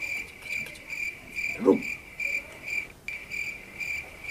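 Cricket chirping steadily, nearly three short high chirps a second. A person gives one brief cry about one and a half seconds in.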